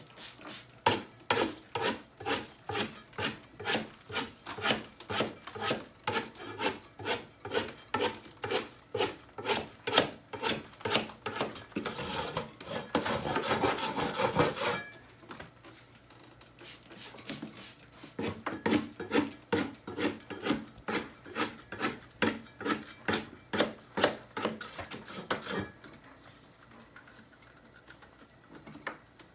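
Putty knife scraping sprayed-wet popcorn ceiling texture in quick repeated strokes, about two a second, with a stretch of steady continuous scraping about halfway through. The strokes pause, resume, and fade to quiet near the end.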